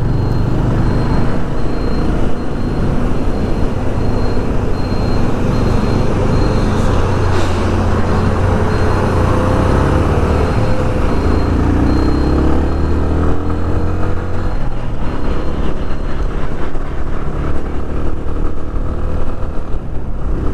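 Yamaha FZ25's single-cylinder engine running steadily at highway speed, under loud wind and road noise, with heavy traffic alongside. A little past halfway the engine note rises in pitch.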